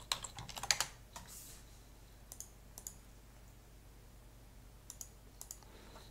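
Computer keyboard typing: a quick run of keystrokes for about the first second, then only a few scattered clicks over a faint steady low hum.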